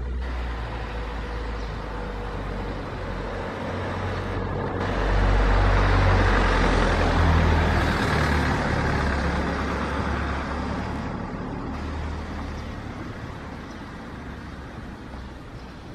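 A motor vehicle passing by: a low engine rumble and road noise swell to a peak about five to eight seconds in, then fade away.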